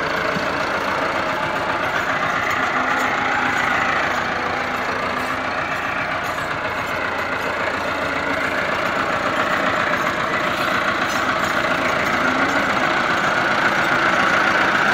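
Massey Ferguson 385 tractor's four-cylinder diesel engine running steadily under load while pulling a potato planter through tilled soil. It grows somewhat louder near the end.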